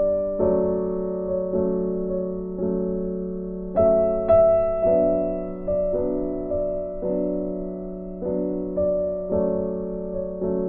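Background piano music: a slow, gentle tune of struck notes and chords, each ringing and fading, with a louder high note about four seconds in.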